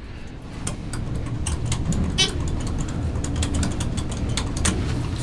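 Low rumble inside an elevator, with scattered clicks and rustles as people move about and a button is pressed.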